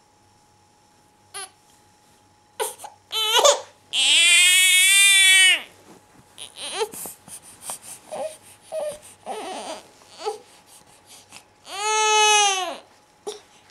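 Baby crying: a few short cries, then a long wail about four seconds in, a stretch of broken whimpering, and a second shorter wail near the end.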